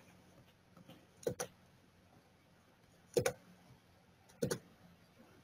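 Computer mouse clicks: a quick pair about a second in, a single click a little after three seconds, and another quick pair near the end, with near silence between.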